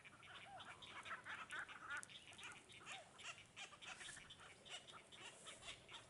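Faint, dense chatter of many birds calling at once: short, rapid calls overlapping without pause.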